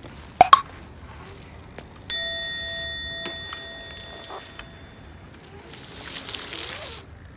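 Two quick clicks, then a single bright bell ding that rings out and fades over about three seconds: a subscribe-button click and notification-bell sound effect. Near the end, a BMX bike's tyres roll through a shallow puddle with a hiss of water spray for about a second.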